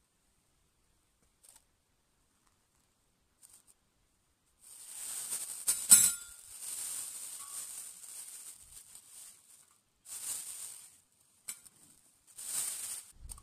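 Plastic bag rustling and crinkling as it is handled, in several bursts starting about four and a half seconds in, with one sharp click about six seconds in.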